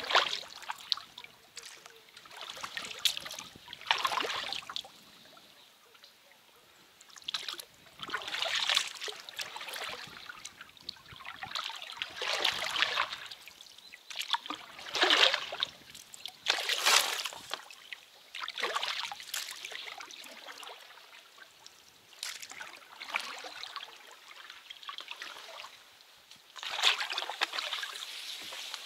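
Small boat being rowed slowly: blades dipping into the water with splashes, and water trickling off them, in uneven strokes every one to three seconds.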